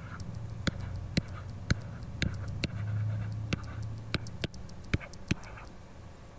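Light, irregular clicks, about one or two a second, from the input device as handwriting is drawn onto a slide, over a low steady hum.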